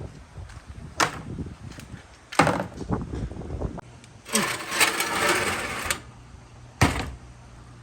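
Marbles clicking and rattling on a marble run track, with a dense clatter of many balls running together for about two seconds in the middle, and single sharp clicks before and after.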